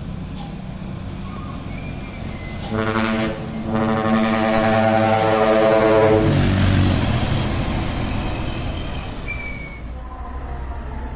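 A dump truck's trumpet-style air horn sounds one long, steady blast of about four seconds, starting about three seconds in, over the rumble of the truck's diesel engine. The engine and road noise grow louder to a peak and then fade, as a truck passing by does.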